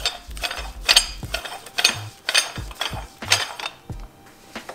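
Metal clicking and clinking, about two to three a second and fading out near the end, from the threaded height-adjustment body and collars of an ISC N1 coilover being turned by hand.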